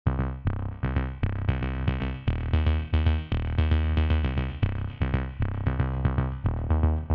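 An electronic song with a drum-machine beat and heavy bass, starting suddenly, played from a phone through a budget 10 W 10we TG113 Bluetooth speaker as a sound-quality test.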